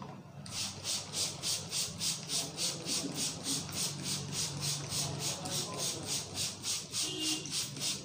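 A barber's hands rubbing rapidly over hair and scalp during an Indian head massage: a steady run of brisk hissing strokes, about four a second, starting about half a second in.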